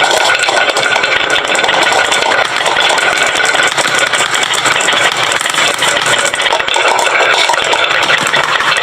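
Many marbles rolling and clattering down a wooden marble-run slope, a dense continuous rattle of tiny clicks.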